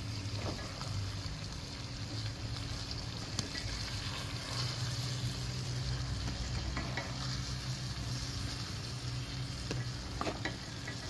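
Chicken pieces, chopped tomatoes and spices sizzling in a metal karahi over a gas flame while a wooden spatula stirs and mixes them, with a few light scrapes and knocks of the spatula against the pan.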